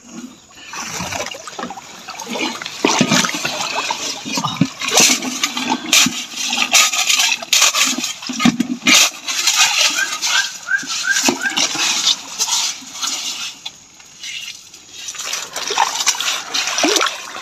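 Water rushing and splashing, with repeated knocks and scrapes of a long blade chopping into a sandy riverbank and soil being scooped by hand.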